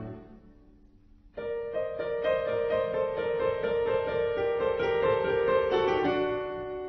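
Background music: a string piece fades out, and after about a second and a half of near quiet a gentle keyboard piece begins with steady, held notes.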